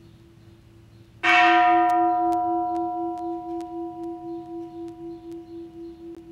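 A Buddhist temple bell struck once about a second in, ringing on with a wavering, slowly fading tone over a steady low tone already sounding.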